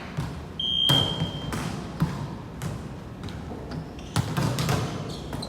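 A single whistle blast of about a second, and volleyball impacts: sharp thuds of the ball about a second in, again at about two seconds, and a quick cluster of hits a little after four seconds.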